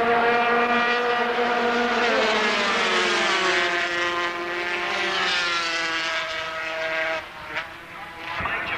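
250cc two-stroke Grand Prix racing motorcycles at full throttle, a high-pitched engine wail. The pitch drops about two to three seconds in as they go past, then climbs again as they accelerate away, and the sound fades about seven seconds in.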